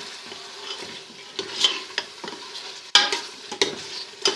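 A spoon stirring and scraping thick beef karahi masala in a pressure cooker pot, with several sharp clinks of the spoon against the pot over a low sizzle of the masala cooking.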